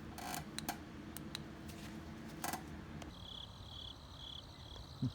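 A low steady hum with a few light clicks. About three seconds in this gives way to crickets chirping in short, even pulses, about two a second.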